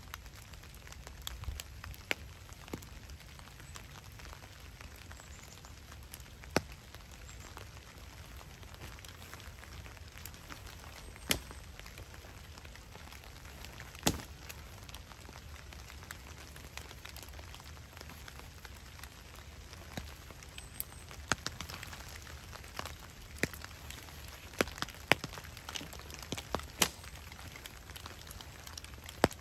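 Steady rain falling on the woods and a small wood campfire crackling, with scattered sharp snaps and pops that come more often near the end.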